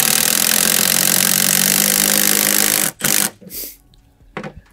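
Cordless power driver running steadily for about three seconds as it sinks a lag screw through a solar roof-mount base (Unirac FlashLoc) into wood, then stopping, followed by one or two brief trigger blips as the fastener is snugged tight.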